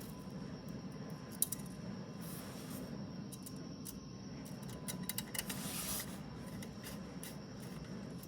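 Scattered light clicks and taps from an IDOBAO ID80 mechanical keyboard and its parts being worked, over a steady low hum. There is a sharper click about one and a half seconds in and a quick run of clicks around five to six seconds in.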